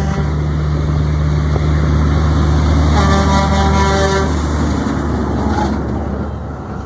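A semi truck's engine drones as it passes. About three seconds in, its air horn blows once for over a second, several notes sounding together. The drone fades near the end.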